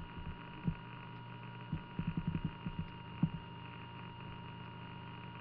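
Steady electrical hum with a thin high whine, the recording's own background noise. A few soft low knocks come in a cluster about two seconds in, with one more a second later.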